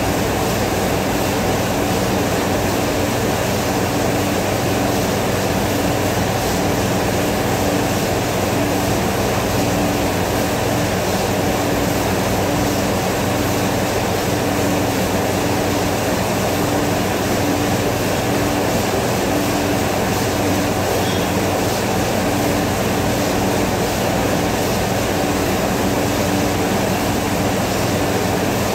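Commercial kitchen machinery running steadily under a stainless exhaust hood in a dish pit: a loud, even rush with a low hum and a low tone that pulses on and off about every second and a half.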